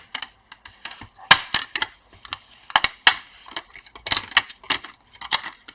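Hard plastic parts of a laptop's display housing being worked apart by hand and tool: an irregular series of sharp clicks, snaps and clatters.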